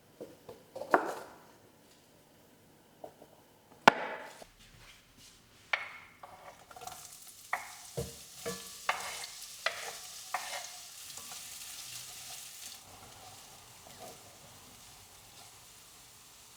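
Cooking sounds: a string of sharp knocks of a utensil on cookware, with a sizzling hiss that lasts about six seconds midway and then dies away.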